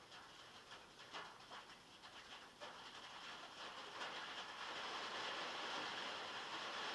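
Rain on a metal roof: separate drops tapping at first, thickening into a dense, steady downpour that grows louder about four seconds in.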